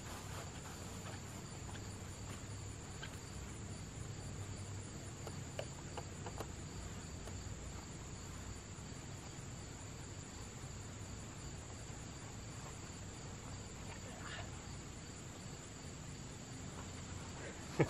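Steady high-pitched chirring of insects in the background. A few faint knocks come about six seconds in and again near fourteen seconds, as the wooden 4x4 swing-set leg is shifted.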